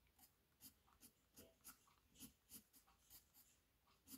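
Watercolor pencil scratching faintly on paper in a series of short upward strokes, roughly two or three a second.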